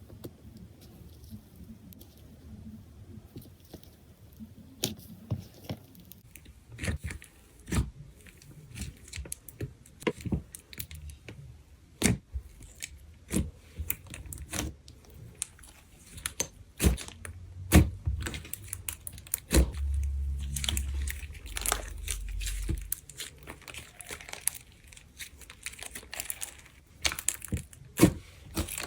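Clay slime being squished, poked and stretched by hand, giving irregular sharp clicks and pops over a soft sticky crackle, with a few low thuds of handling about two-thirds of the way through.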